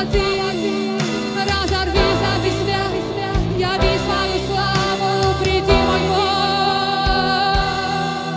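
Live worship band playing: electric guitar, keyboard and drums with a steady beat, and a singing voice over them.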